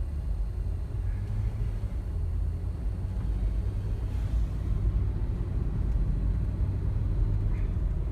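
Steady low rumble of a car driving, heard from inside the cabin as road and engine drone.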